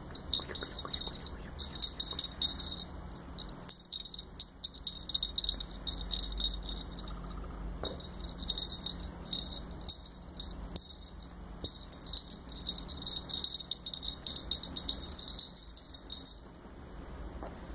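High, rapid chirping that comes and goes in bursts, like a cricket, pausing briefly near the end.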